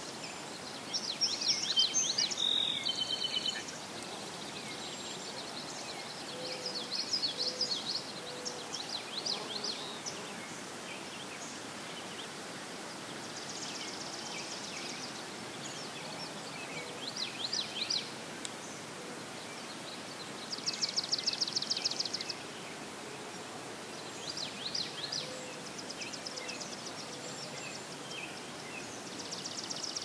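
Several songbirds singing in a marsh: short trills and chirped phrases every few seconds, the loudest a couple of seconds in and a rapid trill of about a second and a half a little past two-thirds of the way through, over a steady outdoor hiss.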